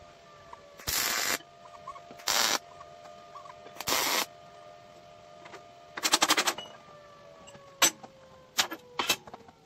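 MIG welder arc crackling in four short tack welds on quarter-inch steel plate, each lasting about half a second, the last a rapid sputter. A few sharp knocks follow near the end, over a faint steady hum.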